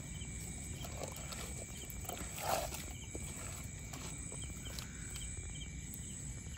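Night insects, crickets by their sound, chirping faintly in short repeated trills over a steady low background hum, with a brief rustle about two and a half seconds in.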